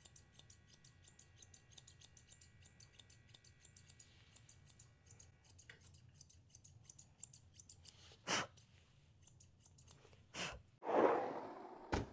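Kenchii Sapphire curved grooming shears snipping through a small dog's coat in quick, steady strokes, several a second, stopping after about seven seconds. A few louder sudden sounds follow near the end.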